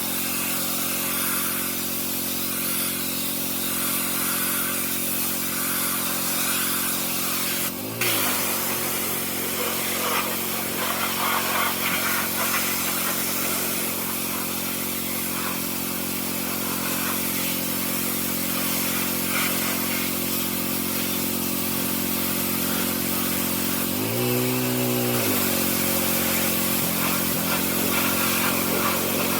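A 20-year-old pressure washer's small engine running steadily under a hiss of water spray. Its pitch dips briefly about eight seconds in and again for about a second near the end, then recovers.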